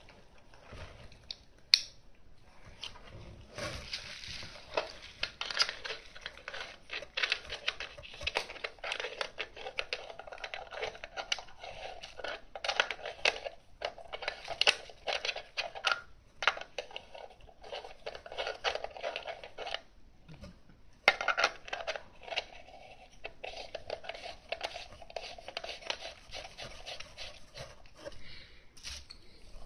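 Close handling noise as hands work a vintage rangefinder camera and its lens over bubble wrap: continuous rapid crinkling and scraping with many small clicks, a sharp click about two seconds in, and brief pauses about two-thirds of the way through.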